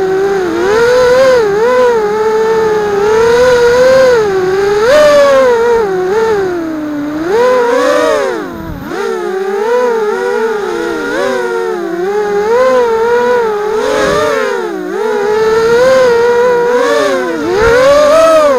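Brushless motors and propellers of a 180-size FPV racing quadcopter, heard from a camera mounted on the drone itself, whining with a pitch that rises and falls constantly as the throttle is worked, and dropping off briefly about halfway through.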